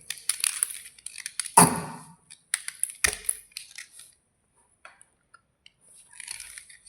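White slate bars crunching and cracking in a dense run of sharp crunches, with the loudest cracks about a second and a half and three seconds in, then sparser ticks before more crackling near the end.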